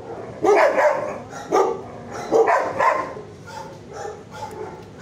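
Dogs barking: about five loud barks in the first three seconds, then quieter barking.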